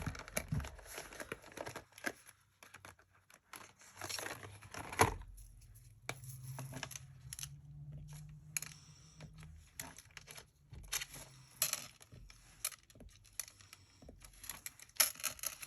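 Plastic craft markers being sorted, picked up and uncapped, with scattered clicks and paper rustling, one sharper click about five seconds in.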